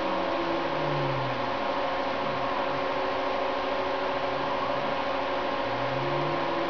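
Sherline mill's stepper motors moving the table under CNC control, whining in low tones that slide down and back up in pitch as the axes slow and speed up. Under them run a steady hum and hiss.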